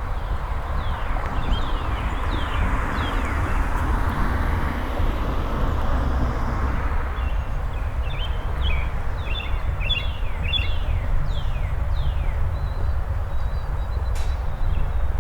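Songbirds chirping: a run of quick downward-sliding notes and a burst of rapid twittering around the middle, over a steady low rumble and a walker's footsteps. A soft rushing swell of noise fills the first half.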